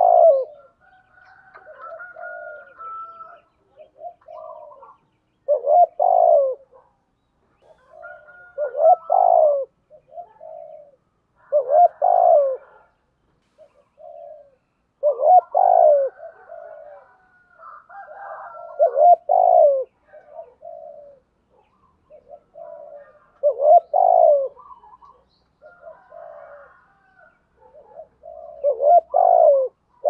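Spotted dove cooing: a loud coo phrase about every three to five seconds, with softer coo notes between, the repeated calling coo of a caged male.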